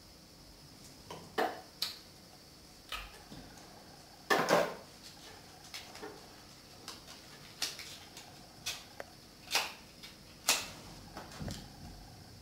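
Quiet hand-handling noises as a cigarette is rolled and lit: scattered short rustles and clicks, the loudest a brief rustle about four seconds in.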